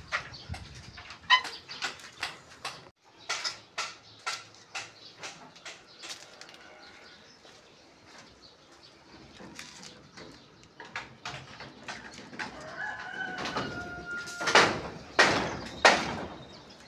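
A rooster crowing once, a held call about three-quarters of the way through, over a scatter of short sharp clicks and taps; three loud sharp knocks follow the crow.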